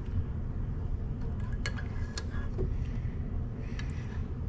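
A few faint, light clinks of a teaspoon against a mug of tea, over a steady low rumble.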